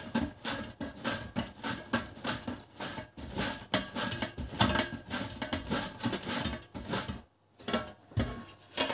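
A wedge of white cabbage is pushed back and forth over the steel blades of a plastic mandoline slicer, shredding it finely. The strokes come in an even rhythm, about three a second, with a short pause near the end.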